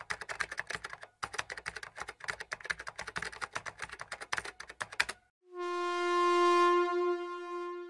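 Rapid computer-keyboard typing sound effect, many quick clicks, with a brief pause about a second in and stopping about five seconds in. Then a single sustained electronic chime note swells up and slowly fades.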